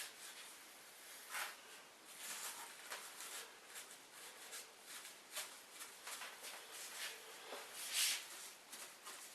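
Faint rubbing and rustling of a paper towel wiping grease along metal guide bars, in soft irregular strokes. The loudest stroke comes about 8 seconds in.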